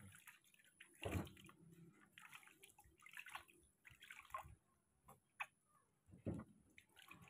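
Quiet splashing and dripping of water in a plastic basin as handfuls are scooped and poured over a baby monkey's head. The two largest splashes come about a second in and about six seconds in, with lighter drips and trickles between them.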